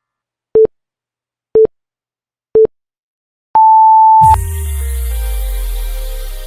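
Workout interval timer counting down: three short low beeps a second apart, then one longer, higher beep that marks the start of the next interval. Electronic music with a deep bass comes in right after the last beep.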